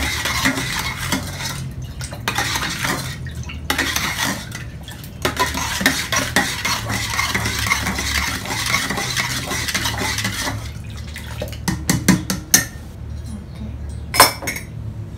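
Metal spoon stirring sugar into cold water in a stainless steel jug, scraping steadily round the inside to dissolve it. In the last few seconds the stirring gives way to a series of sharp clinks of spoon on metal.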